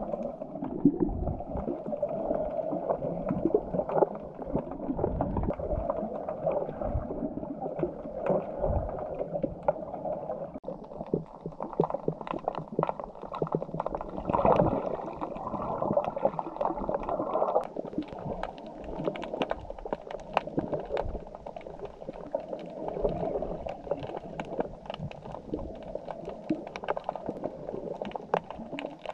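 Muffled underwater water noise from a camera in the sea: low sloshing and gurgling with scattered sharp clicks, the clicks more frequent in the second half.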